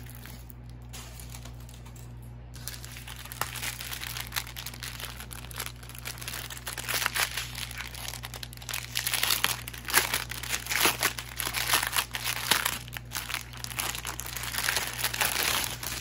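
Plastic packaging of a diamond painting kit crinkling and rustling as it is handled. It is light for the first few seconds, then busy and irregular, with the loudest handling in the middle and near the end.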